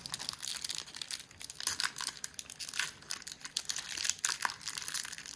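Foil wrapper of a Pokémon TCG Silver Tempest booster pack crinkling and tearing as it is torn open by hand, a steady run of quick crackles.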